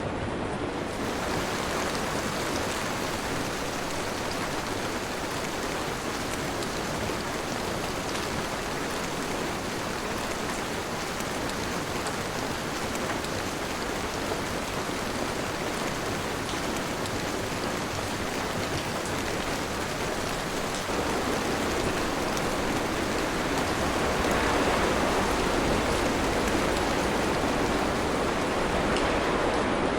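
Steady rain falling, an even wash of noise, swelling louder and heavier about two thirds of the way through.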